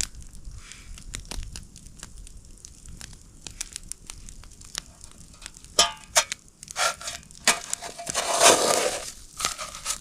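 Scattered crackles and clicks with bursts of rustling and crunching, the loudest about eight and a half seconds in.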